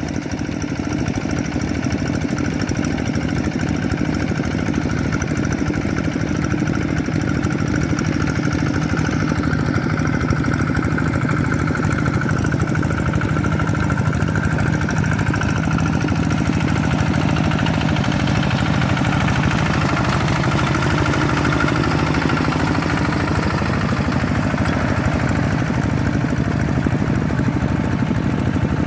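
Single-cylinder diesel engine of a two-wheel walking tractor running steadily under load as it drags a leveling board through flooded paddy mud.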